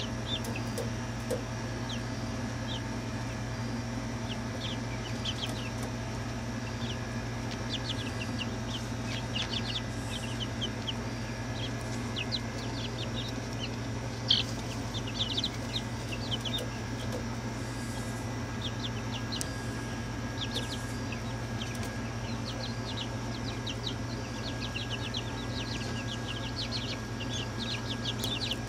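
A group of young chickens peeping and chirping, with many short high cheeps throughout over a steady low hum. There is one sharp tap about halfway through.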